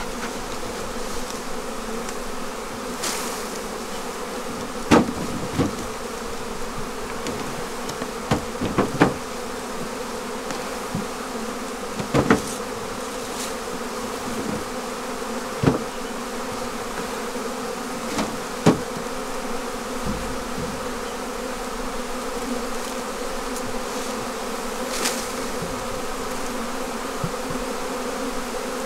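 A mass of honeybees swarming and buzzing steadily around an opened hive. Sharp knocks now and then break through the drone.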